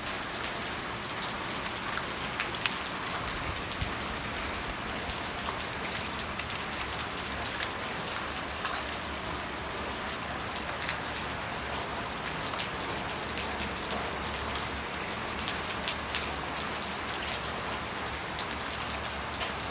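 Steady rain falling, with many small ticks of individual drops hitting a surface.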